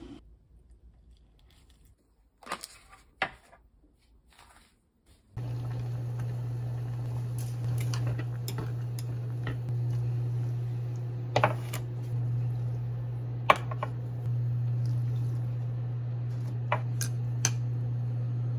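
Buckwheat noodles boiling in a pot on an induction cooktop. From about five seconds in there is a steady low hum with bubbling water, a few sharp clinks of glass and chopsticks against the pot, and water poured in from a glass. Before that it is near quiet, with two light clicks.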